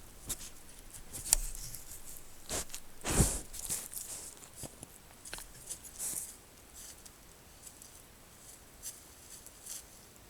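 Deer breathing heavily, in short breathy puffs with scattered clicks. The strongest puffs come in the first few seconds, then they grow fainter.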